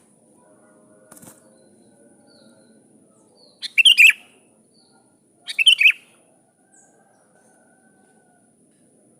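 Sooty-headed bulbul (kutilang) giving two short bursts of rapid chattering calls, about four seconds in and again about six seconds in: a bulbul calling to a rival.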